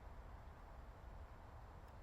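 Near silence: only a faint, steady low rumble of background noise.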